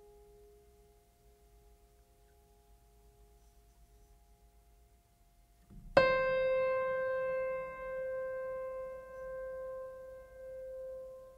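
Background piano music: soft held notes, then a loud note struck about six seconds in that rings on and fades while further notes follow.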